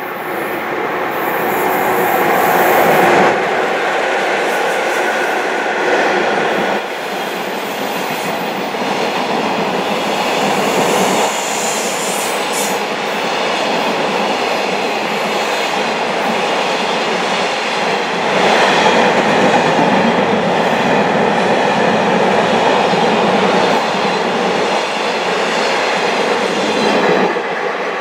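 JR Freight EF66-100 electric locomotive and its long container train passing through a station without stopping: continuous wheel-on-rail noise from the wagons going by. The sound drops away shortly before the end as the last wagon clears.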